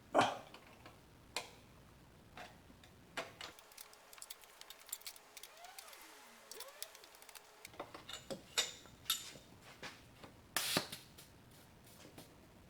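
Scattered metal clicks and taps of hand tools loosening a fitting on a car air-conditioning line. Near the end comes a short burst of pressurized air escaping from the opened line, blowing dirt outward instead of letting it in.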